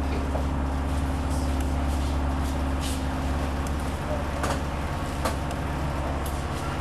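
Station ambience: a large vehicle's engine idling with a steady low hum, with scattered clicks and knocks and faint background voices.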